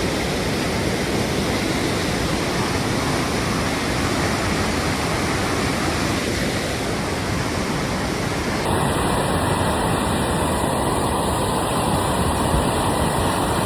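Flooded creek rushing past: a steady, dense noise of fast, high water.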